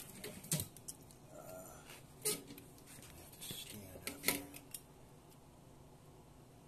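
A few light metallic clicks and knocks, with softer rustling in between, as a gloved hand sets a piece of sheet steel on a steel mesh table for welding. Three sharper knocks stand out, about two seconds apart.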